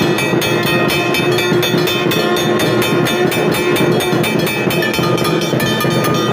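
Hindu temple bells rung continuously with rapid, even strikes, their held ringing tones overlapping into one unbroken clangour.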